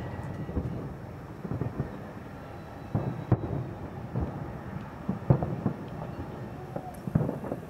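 Distant aerial firework shells bursting, a series of booms at irregular intervals of a second or two, each rolling off into a low rumble like thunder.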